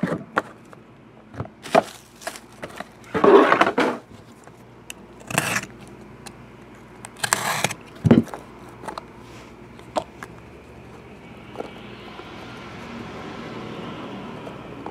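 Hands unwrapping and opening a plastic-wrapped trading card box: the wrapper crinkles and tears in several short bursts, with clicks and a sharp knock of cardboard. A soft, steady rustle of handling comes near the end.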